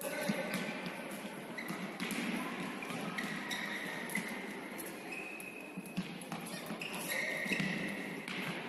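Futsal play in an echoing sports hall: the ball knocked and bouncing on the hard floor, brief high squeaks of shoes on the court several times, and players calling out.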